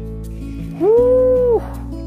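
Background acoustic guitar music. About a second in, one loud, held, pitched call or tone rises into place, holds for under a second and drops away at its end.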